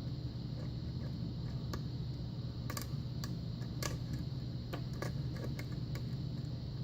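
Irregular small sharp clicks and taps of a lock pick working the pin stack of an old six-pin Russwin pin-tumbler lock under tension, over a steady low hum.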